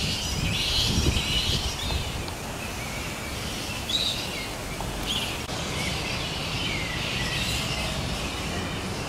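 A roosting colony of spectacled flying foxes chattering and squawking in a constant, high-pitched jumble of calls, over a low rumble that is strongest in the first couple of seconds.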